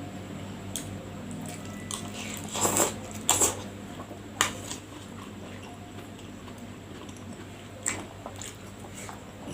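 Close-miked eating: chewing and biting, with a few short sharp crunches or clicks, the loudest about three seconds in, over a steady low hum.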